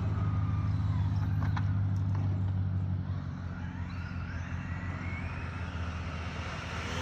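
High-speed RC car running on asphalt: a faint motor whine rises and falls in pitch as it speeds past, over a steady low hum that drops away about three seconds in.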